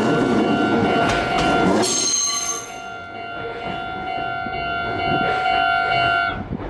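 A Japanese level-crossing alarm rings steadily while a Meitetsu train rumbles past. The train noise falls away about two and a half seconds in. The alarm keeps ringing on its own, then stops abruptly near the end.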